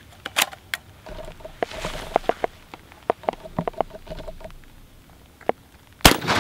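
A single shot from a UTAŞ XTR12 12-gauge bullpup shotgun firing Sterling nickel-plated buckshot, a sharp report about six seconds in that rings out across the open ground. Faint scattered clicks come before it.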